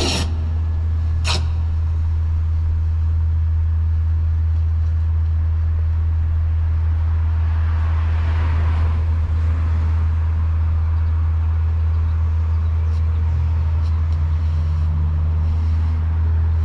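A car passes on the street, swelling and fading about seven to ten seconds in, over a steady low hum. A brief sharp click comes about a second in.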